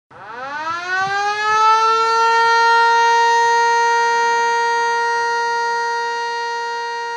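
Evacuation alarm siren winding up, rising in pitch over about two seconds, then holding one steady wail that slowly fades: the signal to evacuate in a school earthquake drill.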